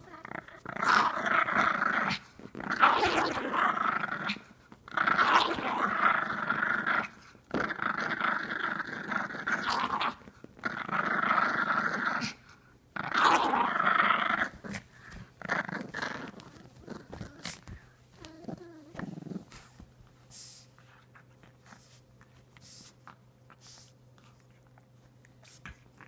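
Pug growling in play while tugging on a sock, in long bouts of a few seconds each with short gaps between. The growling stops about two-thirds of the way through, leaving only faint sounds.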